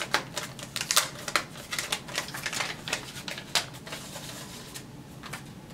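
Crinkly plastic of a suncatcher window decal and its film crackling as it is handled: a fast run of small crackles and clicks that thins out over the last couple of seconds.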